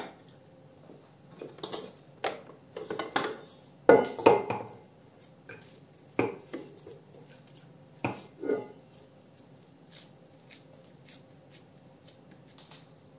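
Stainless steel stand-mixer bowl clanking and knocking as it is lifted off the mixer base and tipped, with dough scraped out of it by hand. The loudest clanks come about four seconds in, a few more around six and eight seconds, and only faint taps after that.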